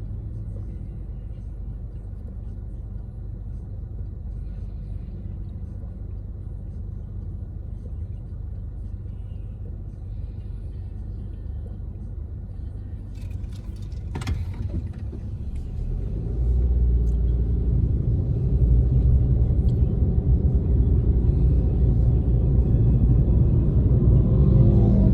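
Car cabin rumble of engine and tyres while driving, heard from inside. It grows clearly louder about two-thirds of the way through, shortly after a single sharp click.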